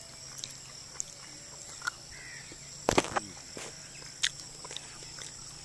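Insects droning steadily in two high tones, with a few short bird chirps. A sharp click about three seconds in is the loudest sound, and a second comes a little over a second later.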